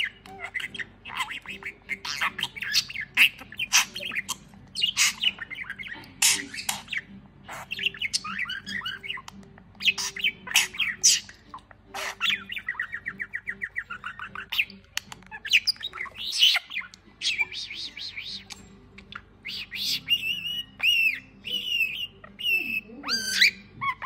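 Budgerigar chattering and warbling without a break: a run of squawks, chirps and rapid trills, with clearer whistled calls near the end.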